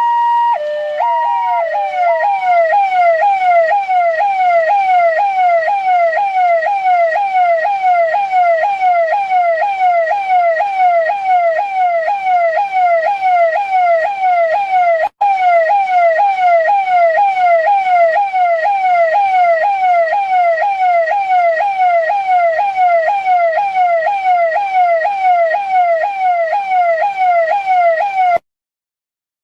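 Indian police car's electronic siren. It opens with a couple of seconds of alternating high–low two-tone, then switches to a fast repeating sweep of about two to three cycles a second. There is a momentary dropout near the middle, and the siren cuts off abruptly about a second before the end.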